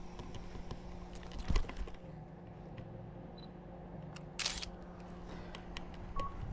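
Camera shutter of a FUJIFILM X100V clicking about a second and a half in, over a steady low hum. A short hiss follows about four and a half seconds in, and there are two brief beeps near the end.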